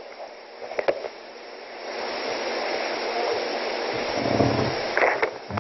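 Steady rushing hiss that grows louder about two seconds in, with a brief low rumble a little after four seconds and a short voice fragment near the end.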